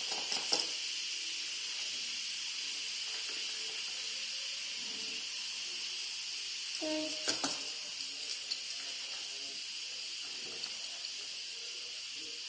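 Pressure cooker venting steam through its release valve: a steady hiss that slowly tapers as the pressure drops. Two sharp clinks about seven seconds in.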